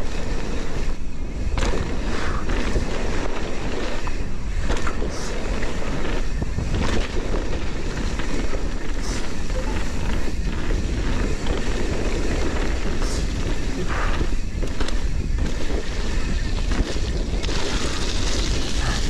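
Mountain bike descending a wet, muddy trail at speed: wind rushing over the microphone with the hiss and rumble of tyres through mud, and scattered knocks and rattles from the bike over rough ground.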